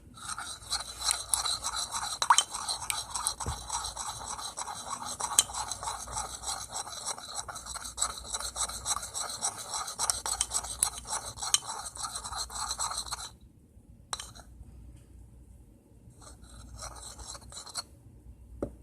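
A utensil scraping around a bowl, stirring nail polish and vegetable oil together: continuous rapid scraping that stops abruptly about thirteen seconds in, then a few brief, quieter scrapes.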